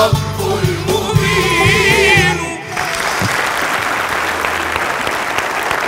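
A choir with instrumental backing holds a final sung note with vibrato, then stops about two and a half seconds in. Studio audience applause follows.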